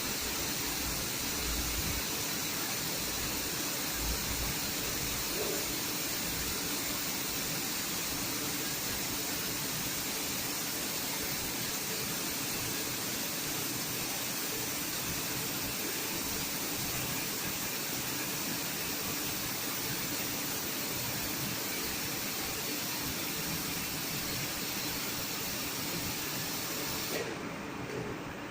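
Steady hiss of air from spray-painting equipment on an automatic painting line. The highest part of the hiss drops away abruptly about a second before the end.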